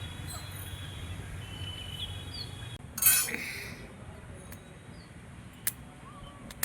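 Small birds chirping now and then over a steady low hum, with a sudden loud rush of noise lasting about half a second about three seconds in, and a couple of sharp clicks near the end.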